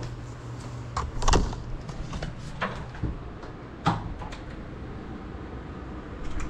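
Handling noise from a small FPV drone and its onboard camera being picked up and held by hand: a series of sharp knocks and clicks, the loudest about a second in, over a faint low hum.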